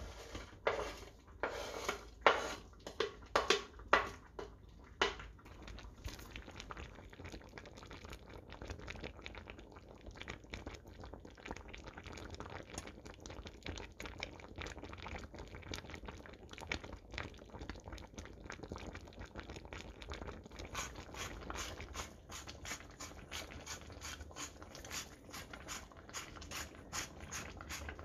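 A knife tapping and scraping sliced green onions off a cutting board into a pot, with several sharp knocks in the first five seconds. Then the tteokbokki simmers with soft bubbling. From about twenty seconds in, a hand-turned sesame grinder crackles with rapid clicks as it crushes sesame seeds over the pot.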